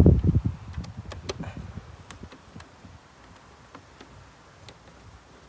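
Small sharp clicks and ticks as a hand screwdriver turns a screw through a clear plastic headlight cover into its clip: a few close together about a second in, then fainter ones scattered. A low rumble dies away in the first half second.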